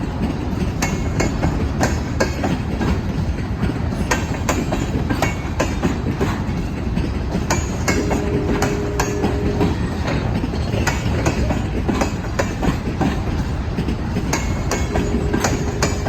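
CSX freight cars rolling past, a steady rumble with the wheels clicking over the rail joints. A short steady tone, like a wheel squeal, rings out twice: about halfway through and near the end.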